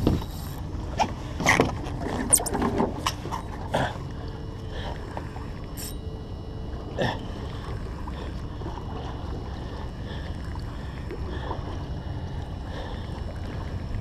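Choppy water lapping and slapping against a small boat's hull, with wind on the microphone. Several sharp knocks in the first few seconds and one more about seven seconds in.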